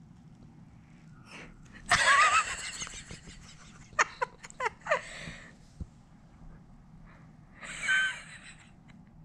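Breathy, wheezy vocal sounds from a person: a loud breathy burst with a wavering pitch about two seconds in, a few sharp clicks and short squeaks a couple of seconds later, and another breathy burst near the end.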